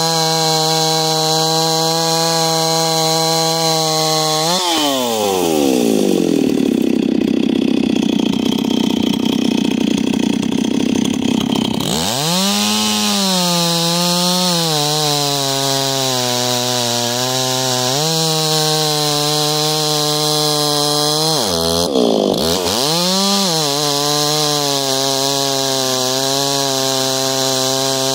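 Stihl MS 260 Pro chainsaw with an opened-up muffler and a single-raker carbide chain, running at high revs as it cuts through a log. The engine note falls away sharply about four and a half seconds in and stays low for several seconds. It then climbs back to a steady high pitch around twelve seconds in, with one more brief dip and recovery later on.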